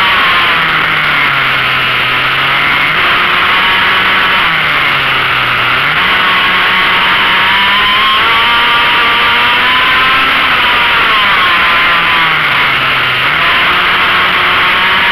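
Motorcycle engine at high revs on a circuit, heard from an onboard camera. The engine note drops three times, about a second, four and a half seconds and twelve seconds in, and climbs back up each time, as the bike slows for a corner and accelerates out.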